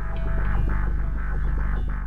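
Background music with a steady, throbbing beat.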